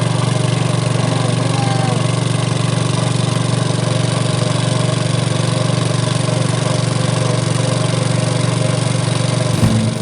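Small engine running steadily at an even speed, cutting off abruptly just before the end.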